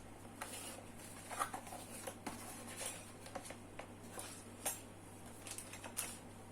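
Light, irregular clicks and clatter of hard plastic being handled: the Digital Alliance Meca 6 Plus mechanical keyboard and its parts being picked up and set down, with the loudest knocks about a second and a half in, near the middle and near the end.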